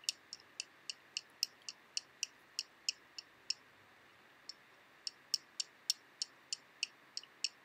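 A regular run of light, sharp clicks, about three a second, pausing for a second or so midway, over faint quiet room tone.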